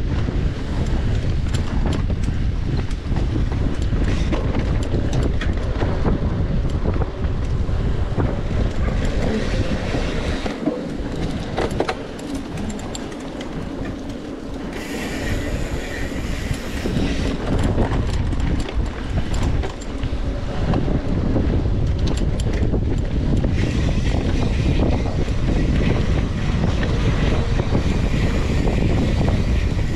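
Wind buffeting the microphone over the rumble and clattering rattle of a mountain bike ridden fast on a rough trail, with many small clicks and knocks from the bike. The wind rumble eases for a few seconds about midway.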